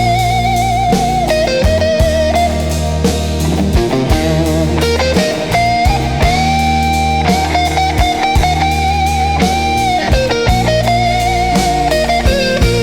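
Slow electric blues instrumental break: a lead electric guitar plays long held notes with wide vibrato and string bends over bass and a drum kit.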